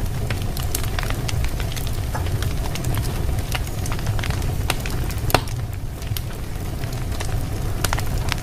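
Fireplace fire crackling steadily, with irregular sharp pops over a low steady rumble; one pop about five seconds in stands out as the loudest.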